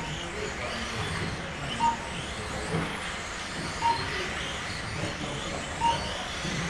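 Mini-Z radio-controlled cars' small electric motors and tyres buzzing around an indoor tile track, with a short electronic beep repeating about every two seconds.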